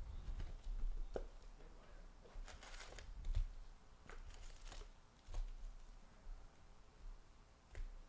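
Faint rustling and swishing of baseball trading cards being handled and slid against each other, with a few light taps, in a short scatter of bursts rather than a steady sound.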